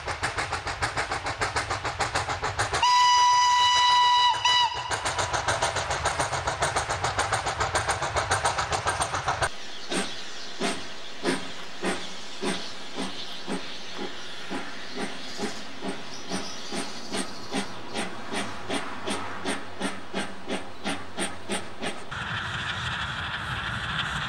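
Steam locomotive working with quick, regular exhaust chuffs, and one long steam whistle blast a few seconds in. After a sudden cut, a steam locomotive chuffs more slowly, about two beats a second and gradually quickening, giving way near the end to a steadier running noise.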